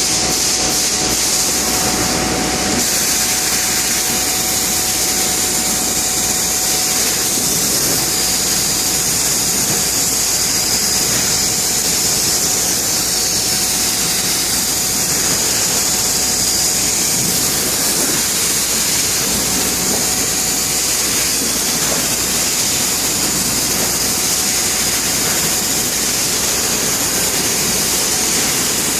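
Bystronic CNC laser cutting machine running: a loud, steady hiss and rush that holds even throughout.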